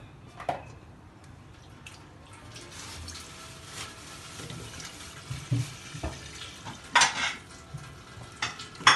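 Water being poured into a large nonstick pot, splashing and swirling as it fills, for boiling rice. Several sharp knocks come with it, the loudest about two seconds before the end and again at the end.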